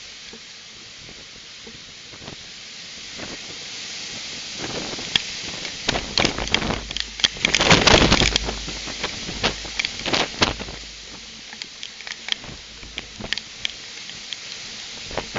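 Severe thunderstorm winds and rain on a security camera's microphone: a steady hiss, with many sharp taps and clatters from about four seconds in and the loudest surge about halfway through.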